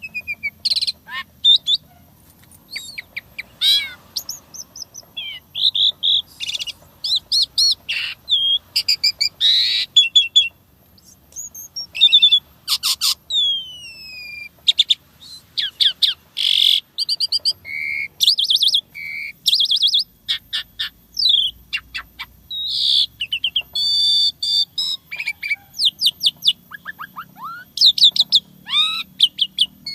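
Asian pied starling (jalak suren) in full song: a fast, varied string of loud whistles, chirps, rapid trills and falling whistled notes, with brief pauses between phrases. The song is packed with borrowed 'isian' phrases, the mimicked fill-in sounds prized in this bird.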